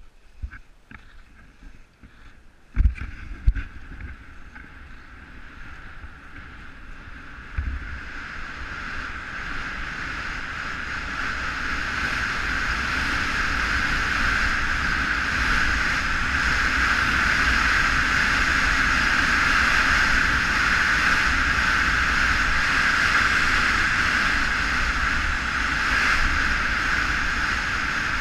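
Skis running over packed snow with wind rushing across the camera microphone. The rush swells over the first ten seconds or so and then holds steady as the skier runs downhill. Two sharp knocks come about three seconds in.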